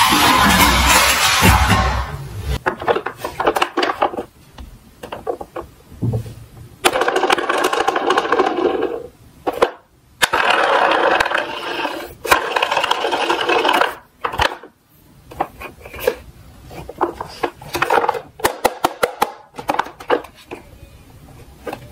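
Die-cast toy cars rolling down a slope track. There are several rattling runs of small wheels, with sharp clicks and knocks scattered between and through them.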